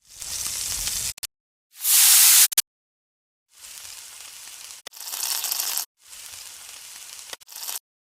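Five short sound-effect samples played back one after another, each a burst of hissing, crackling noise that starts and cuts off abruptly, with dead silence between. The second one, about two seconds in, is the loudest.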